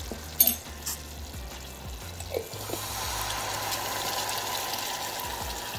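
Red wine poured from a glass into a hot saucepan of raspberries and onion, a steady splashing hiss from about halfway through. A sharp clink comes about half a second in.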